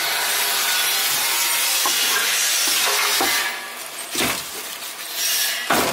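A cleaver chopping through a whole roast duck in a metal tray: two heavy chops, about four seconds in and again near the end, over a steady hiss.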